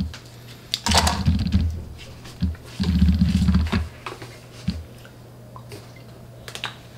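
Light clicks and crinkles of a small foil-packed digestive pill being handled and opened, with two bursts of low rumbling thumps, about a second in and about three seconds in.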